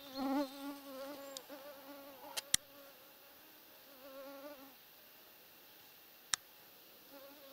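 Buzz of a small flying insect's wings, a wavering whine that fades out and comes back. Two sharp clicks, a little after two seconds in and again about six seconds in.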